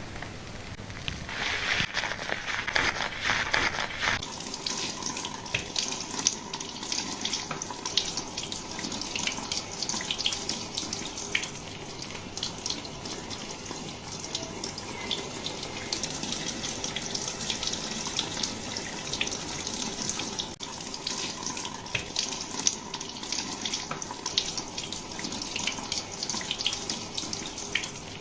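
Running water rinsing hair at a salon wash basin during a scalp-care hair wash: a steady rush of water, a little stronger for the first few seconds, with many small crackles of wet hair and suds.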